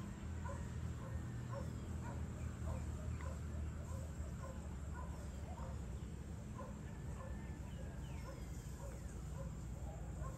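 Many short animal calls repeating irregularly, a few a second, over a steady low rumble, with a few faint higher chirps.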